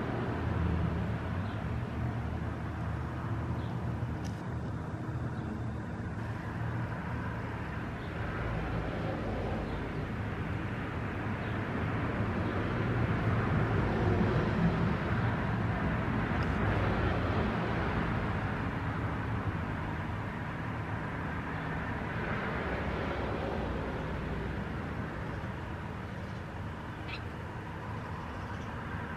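Steady low background rumble and hum, swelling slightly in the middle and easing off toward the end.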